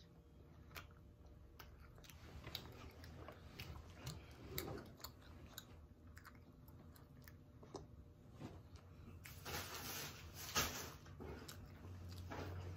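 Faint close-up chewing of a child eating a sauced chicken wing: soft, irregular mouth clicks and wet smacks, a little louder near the end.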